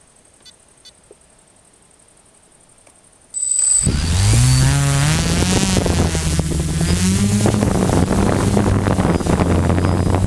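For the first three seconds there are only faint clicks. Then comes a short high beep, and the DJI F450 quadcopter's brushless motors and propellers spin up with a rising whine. They settle into a loud, steady buzz as the drone lifts off and hovers, heard through its own onboard camera.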